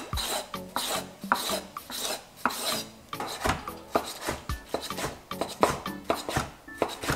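Chef's knife slicing and then dicing a tomato on a wooden cutting board, the blade cutting through the skin and tapping the board with each stroke, about two strokes a second.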